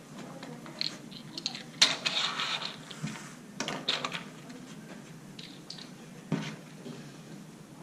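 Chrome wire shelves and steel poles being handled: metal clinking and rattling, with a sharp clank about two seconds in, more clatter around four seconds and a single knock near six seconds.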